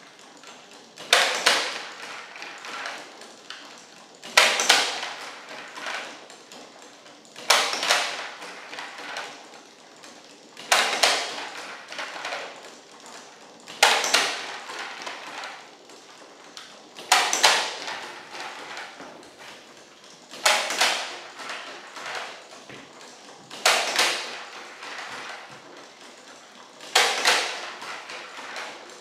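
Hand-cranked wooden automaton working: a sharp cluster of wooden knocks and clatter about every three seconds, nine times, each dying away over a second, with faint clicking of the crank and pegs in between.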